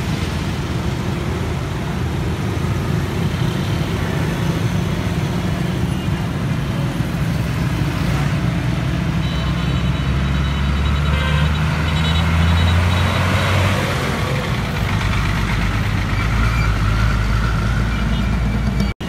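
Large diesel-type heavy vehicle engine running close by, with general street traffic noise around it; the low engine rumble swells and grows louder for a few seconds about halfway through.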